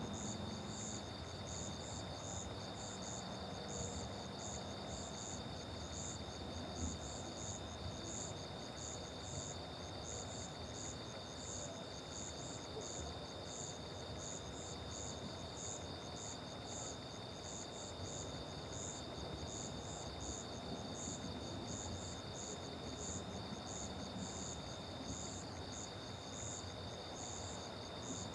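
Crickets and other insects calling: a steady high trill under a rhythmic chirping at about two chirps a second.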